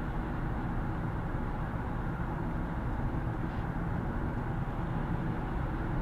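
Steady road noise of a car travelling at highway speed, heard inside the cabin: tyre rumble and engine drone.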